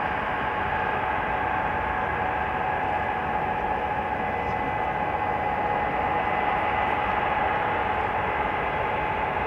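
Ilyushin Il-76TD-90 jet's four turbofan engines running steadily: an even rush of jet noise with a constant whine over it.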